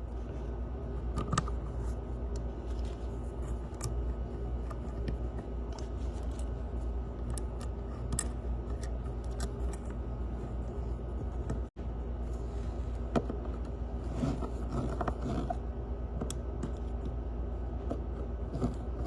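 Small metal hardware clicking and scraping against a steady low hum, with rubbing sounds in the second half.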